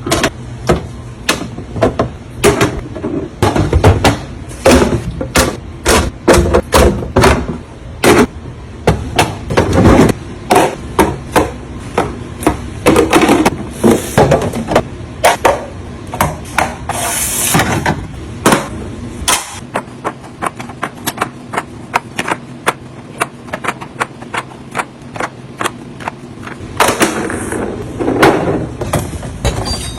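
Quick run of clacks and knocks, several a second, as food containers and items are set down and arranged in a refrigerator.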